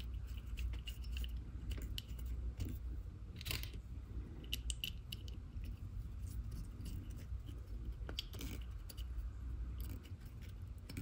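Small screws being turned in by hand into the steel top plate of a lathe crotch center: light metallic clicks and scrapes of fingers and metal parts, with a few sharper ticks, over a low steady hum.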